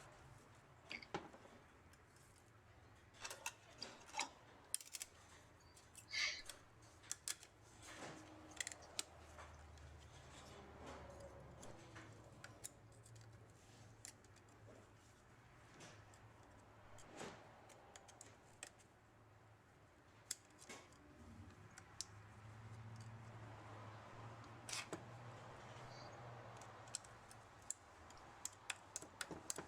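Faint, sparse metallic clicks and small knocks of a snap ring being worked into its groove over the pressure plate in a transmission clutch drum, over a faint low hum.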